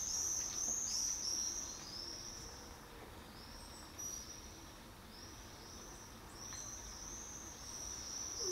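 A small bird singing: runs of short, high, arched chirping notes repeated several times, loudest at the start and again near the end.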